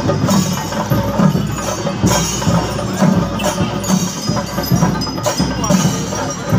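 Percussion music with a steady beat, continuous and fairly loud.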